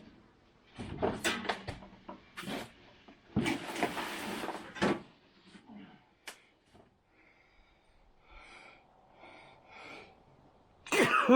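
Knocks, clatter and scraping of parts being handled, with a longer scraping stretch about four seconds in, and a short loud falling squeal near the end.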